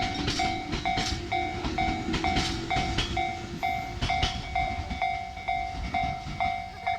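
Japanese railway level-crossing warning bell ringing steadily, about two strokes a second, over a passing train's wheels clattering across rail joints. The bell stops suddenly near the end.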